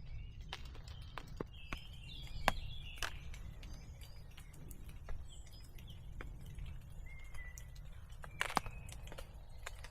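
Birds chirping in woodland, with short calls in the first few seconds and a brief whistled note later on, over a steady low rumble and scattered sharp taps.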